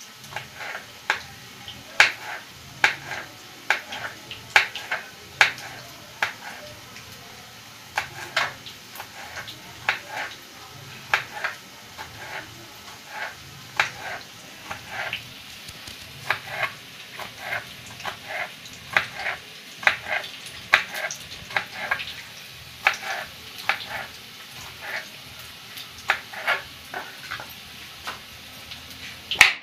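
Knife chopping green chillies on a plastic cutting board: irregular sharp taps of the blade on the board, about one or two a second.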